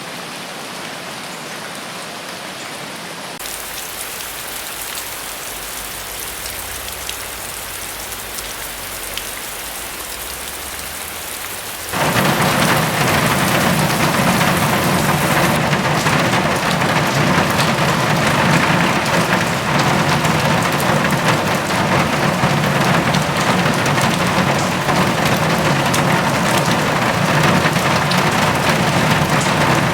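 Steady rain falling, with a low rumble and more hiss joining a few seconds in. About twelve seconds in the rain turns abruptly much louder and fuller, and stays that way.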